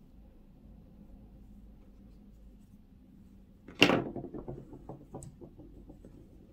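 A crochet hook put down on a table: one sharp clack about four seconds in, then a quick run of fading ticks as it bounces and settles. Before it, only faint handling of yarn.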